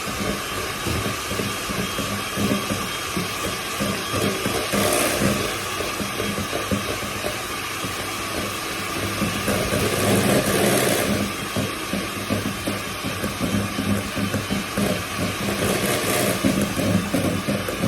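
Electric hand mixer running steadily at low speed, its motor humming as the beaters work flour, shortening, salt and water into a dough, with irregular knocks against the bowl.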